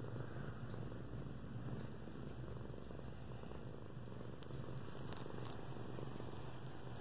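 Domestic cat purring steadily close to the microphone while being stroked, with a few faint ticks about four to five seconds in.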